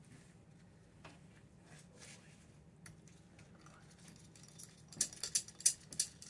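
Metal-on-metal clicks and taps from a T-handle puller being turned on the hub of a PT6 compressor turbine disk: faint and scattered at first, then a quick run of sharp metallic clicks, about five a second, from about five seconds in.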